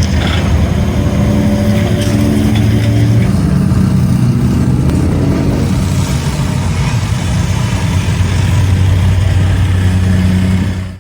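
A heavy engine running steadily on a job site, its pitch sliding up and back about halfway through, with a few faint knocks early on. The sound stops suddenly at the end.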